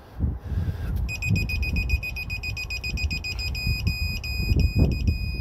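Electronic digital torque wrench beeping a high tone as a cylinder head bolt is pulled up toward its 115 ft-lb setting. The beeping starts about a second in, at first nearly continuous with short breaks, then chopped into separate quick beeps. Low rumbling handling noise from the pull runs underneath.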